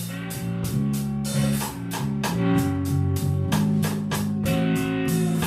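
Blues band playing a slow instrumental passage between vocal lines: guitar notes over a bass line, with a drum kit keeping time with cymbal strokes about three a second.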